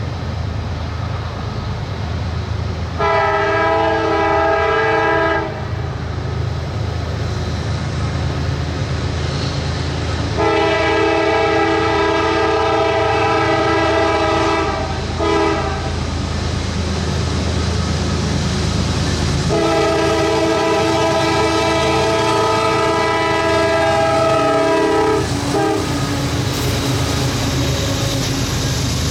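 CSX diesel freight locomotive sounding its multi-note air horn in the grade-crossing pattern, long, long, short, long, over the steady rumble of the locomotive's engine and the train rolling by.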